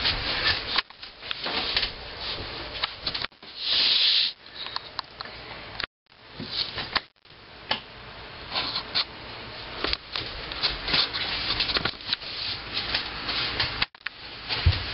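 Rubbing and scraping from the camera being handled close up, with scattered knocks and a burst of hiss about four seconds in. The sound drops out sharply for a moment a few times.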